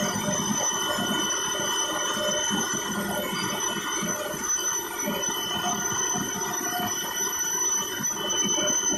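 Loud, steady noise from the HAL Dhruv twin-turboshaft helicopter hovering, heard from inside the cabin with the side open. Rotor wash and engine rumble run under a steady high turbine whine.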